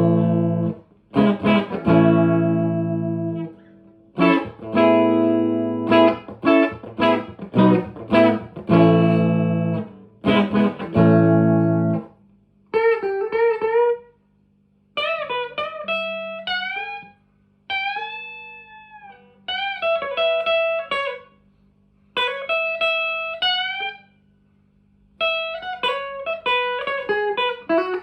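1983 Squier JV Telecaster played through a 1963 Selmer Thunderbird Fifty valve amp's channel 2 and Celestion Greenback speakers. For about the first twelve seconds it plays struck chords that are left to ring between short pauses. Then it switches to single-note lead phrases with a string bend.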